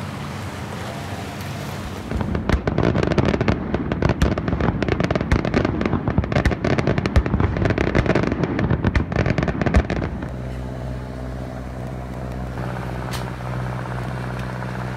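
Fireworks display: a fast, dense run of bangs and crackling that starts about two seconds in and lasts about eight seconds. It then cuts off to a steady low engine hum.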